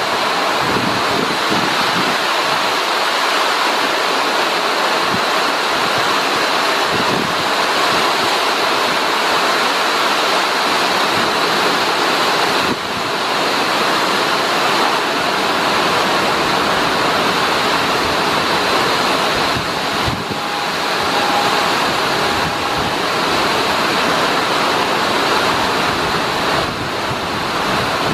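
Extremely heavy rain pouring down in a loud, steady hiss, with wind buffeting the microphone.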